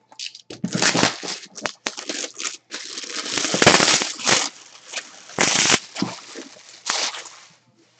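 Sealed card box being unwrapped: plastic wrap and packaging torn and crumpled, an irregular run of crinkling and tearing noises, loudest about halfway through.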